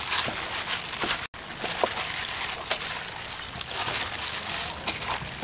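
A hand in a plastic bag mixing raw duck pieces with marinade in a stainless steel bowl: wet squishing and slapping in many quick, irregular strokes. The sound cuts out for an instant a little over a second in.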